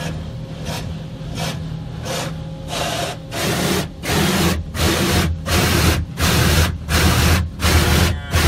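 An Autec automatic car wash beating water and wash cloth against the car in rhythmic pulses, about two a second, heard from inside the car over a steady low machine hum. The pulses get much louder about three seconds in.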